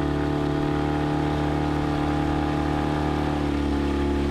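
Small tiller-steered outboard motor on an aluminium tinny running steadily at cruising speed, heard from close behind at the stern, holding a constant pitch.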